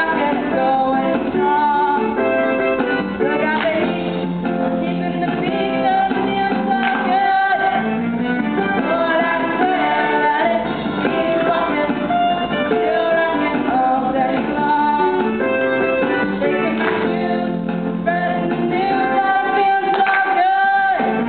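A song from a live stage musical, with singing over the accompaniment for the cast's dance number.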